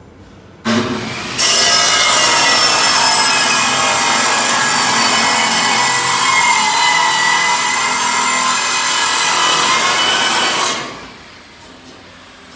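Portable band saw cutting through steel square tubing. The motor starts about half a second in, the blade bites into the metal a moment later with a loud, steady whining rasp, and the saw winds down near the end.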